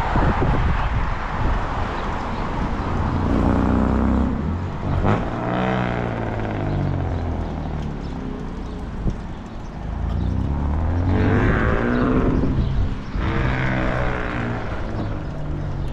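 Road traffic passing: several cars go by one after another, each one's engine and tyre sound sweeping down in pitch as it passes, over a steady rumble of wind on the microphone of a moving bicycle.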